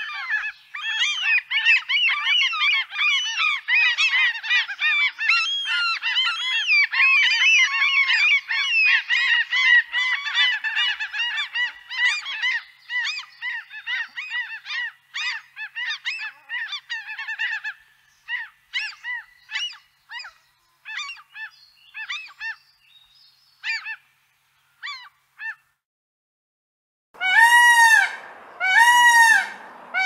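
A flock of gulls calling. Many overlapping cries at first thin out to scattered single calls, which stop about 26 s in. About a second later an Indian peacock starts calling loudly, a call every second or so, three of them before the end.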